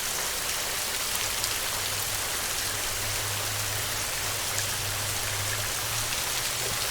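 Steady rain falling: a dense, even hiss of drops with scattered individual drop ticks. A low hum runs underneath through most of it.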